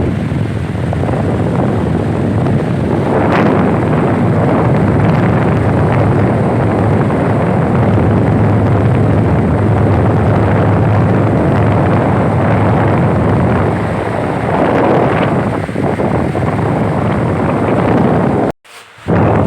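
Pedestal fan blowing hard, its airflow buffeting the microphone in a loud, steady rush over a low hum. The sound cuts out for about half a second near the end.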